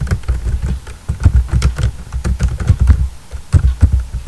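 Computer keyboard being typed on: a quick, uneven run of keystrokes, with brief lulls about a second in and again about three seconds in.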